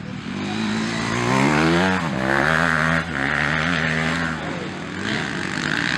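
Motocross bike engines revving hard, the pitch climbing and then dropping sharply at a gear change, over and over, as the bikes ride the track.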